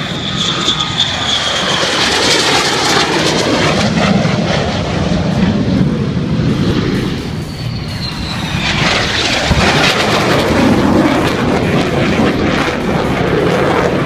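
Fixed-wing aircraft engine flying past, a steady engine noise with a high whine that falls in pitch over the first couple of seconds and again about eight seconds in.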